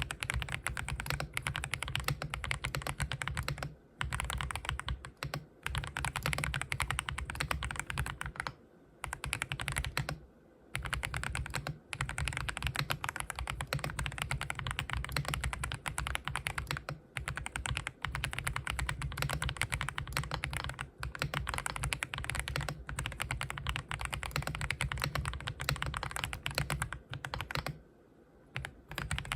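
Fast continuous typing on a custom mechanical keyboard fitted with Haimu Sea Salt tactile switches, a dense run of keystroke clacks with a few short pauses.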